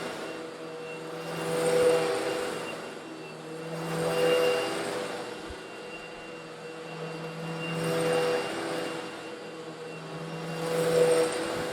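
Eureka vacuum cleaner motor running steadily while sucking up coarse stone granules. The hiss of grit rushing through it swells and fades four times as the vacuum passes back and forth.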